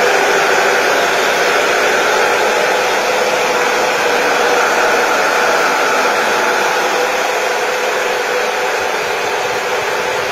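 Loud, steady whir of a liquid-cooled Antminer ASIC mining installation running: the miners' power supplies and cooling equipment, with a faint hum under the rush.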